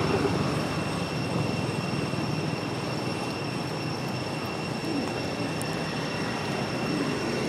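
Steady outdoor background noise, an even rumbling hiss with two faint, constant high tones running through it.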